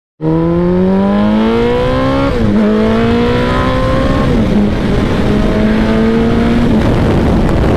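Suzuki Hayabusa's inline-four engine accelerating on the road, its note rising with the revs and dropping back at gear changes about two and four seconds in. The note then holds steady and fades under a rush of wind noise near the end.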